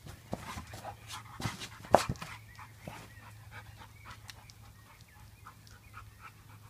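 An Amstaff–Bordeaux Dogge mix dog panting as it plays with a football. A few sharp knocks come through, the loudest about two seconds in.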